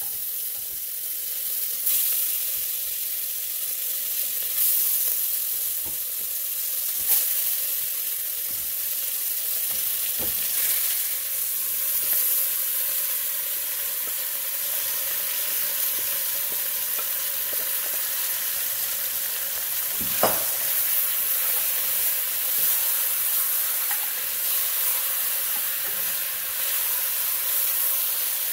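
Seasoned goat meat sizzling and frying in hot vegetable oil in a stainless steel pressure cooker pot while a wooden spoon stirs it. A steady sizzle runs throughout, broken by a few sharp knocks against the pot, the loudest about twenty seconds in.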